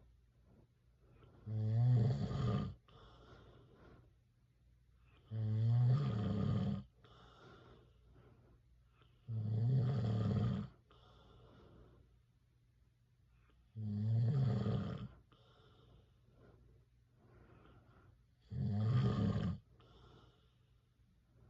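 A man snoring in his sleep: five loud snores, each lasting over a second, coming about every four seconds, with faint breathing between them.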